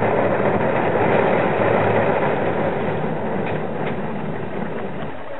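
Rice threshing machine running steadily as rice stalks are fed into its screened drum, a loud, dense mechanical noise that eases slightly after about three seconds.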